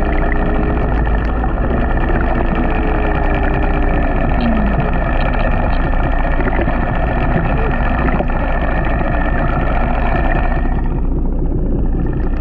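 A boat engine heard underwater: a steady drone with a faint wavering hum whose pitch slides down about four seconds in, its higher part falling away near the end.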